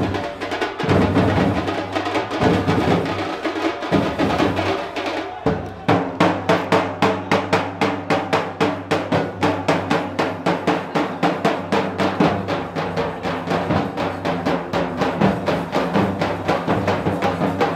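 A drum troupe beating large stick-played bass drums. The hits are dense and uneven at first, then settle about six seconds in into a fast, even beat of roughly three to four strokes a second over steady low tones.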